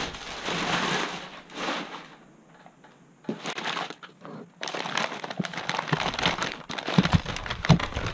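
White packing paper crinkling and rustling as it is pulled open by hand, in two spells with a quieter pause between. Two sharp knocks sound near the end.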